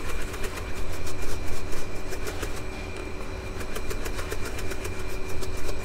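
Milled barley grist rattling rapidly in a sieve box being shaken to separate husk, grits and flour, over a steady machine hum.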